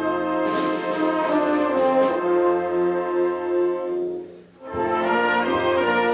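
Wind band playing held brass and reed chords. The music breaks off for about half a second around four seconds in, then the band comes back in.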